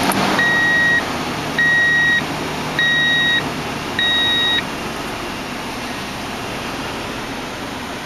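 The Tundra's 4.7-litre V8 idles steadily just after start-up, its misfiring cylinder-5 ignition coil newly replaced. Over it, a dashboard warning chime beeps four times, about once a second, and stops about halfway through.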